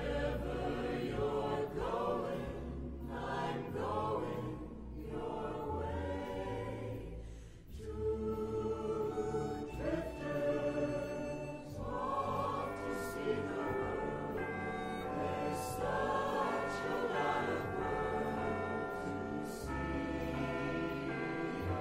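Background music with a choir singing sustained notes.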